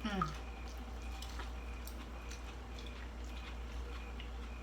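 Eating sounds: faint chewing with scattered small clicks and wet mouth noises. It opens with a short falling vocal sound lasting under half a second.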